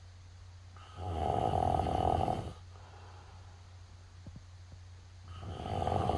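Snoring: two long, loud snores, the first about a second in and the second starting near the end, over a steady low hum.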